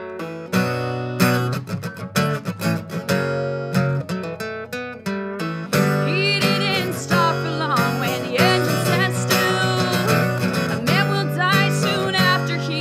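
Acoustic guitar strummed in a steady rhythm of chords; about six seconds in, a voice comes in singing long, bending notes over it.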